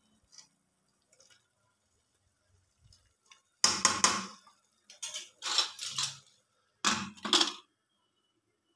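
Steel ladle scraping and clanking against the metal of a Hawkins aluminium pressure cooker as potato curry is stirred and the cooker is closed. There are three loud bursts of metal clatter, starting about three and a half seconds in, after a near-silent start with a few faint clicks.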